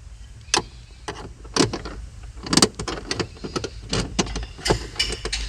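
Scattered sharp clicks and knocks, the loudest about two and a half seconds in, as a worn gear shifter cable is handled and worked loose to be fished out of a car.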